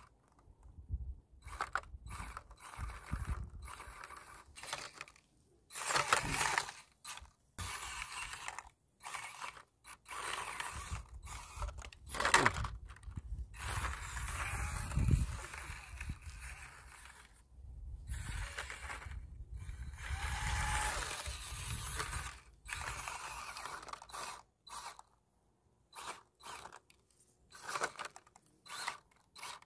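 Axial SCX24 1/24-scale RC crawler's brushless motor and transmission whining in short stop-start bursts as the throttle is applied and released, with one longer rising and falling sweep about halfway through.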